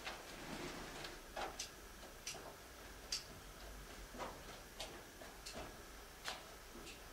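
Faint, irregular sharp clicks and ticks, about a dozen in all at uneven spacing, over a low steady hiss.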